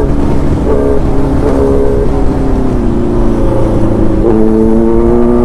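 Kawasaki Z900's inline-four engine running in fifth gear under riding wind rush: its note falls as the bike slows, then steps up about four seconds in and climbs as the throttle opens again.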